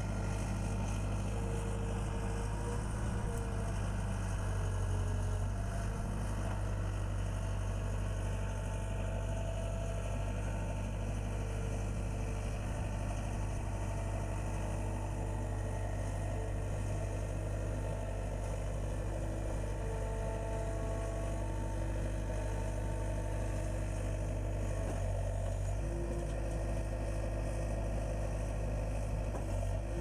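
John Deere 320 skid steer loader's diesel engine running steadily while the loader works, with a slight shift in its tone about 25 seconds in.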